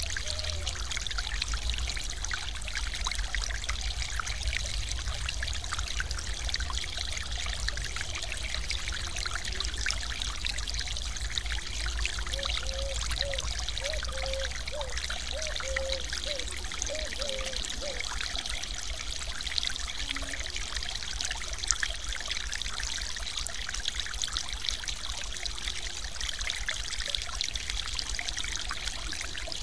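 Small mountain-stream waterfall pouring and splashing steadily into a foaming pool, a constant rushing hiss of water.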